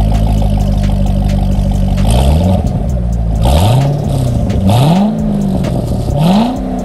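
2010 Chevrolet Corvette C6 Grand Sport's 6.2-litre LS3 V8, heard at the exhaust, idling steadily. About two seconds in it is revved four times in quick succession, each rev rising and dropping back toward idle.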